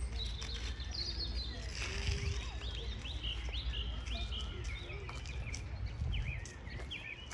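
Small songbirds chirping repeatedly in quick short calls over a steady low rumble of outdoor background noise.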